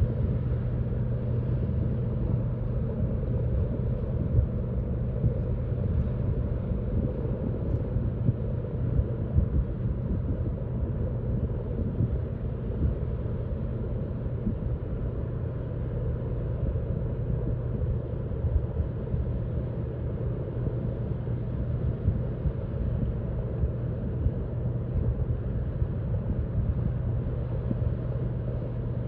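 Low, steady rumble with a constant hum from the Great Lakes bulk carrier Frontenac's engines as the ship turns around.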